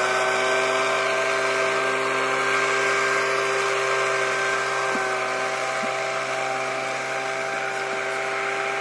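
Small engine of a motorised tea-plucking machine running steadily, a constant whine of several fixed pitches over a hiss, growing slightly fainter from about halfway.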